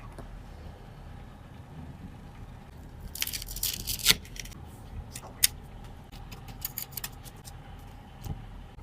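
Small hard parts and tools being handled on a repair bench: a scraping, clattering burst about three seconds in, then sharp clicks and scattered light ticks, over a low steady hum.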